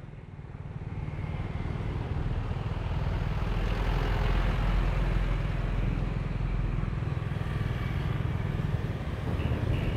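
Motorbike riding along a street, its small engine running steadily under wind and road noise, growing louder over the first few seconds.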